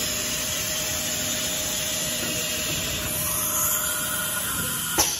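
Retrofitted Brother TC-227 CNC machining center running a spot-drilling operation: a steady hissing machine noise with a faint whine. A higher whine joins about three seconds in, and the noise cuts off with a click near the end.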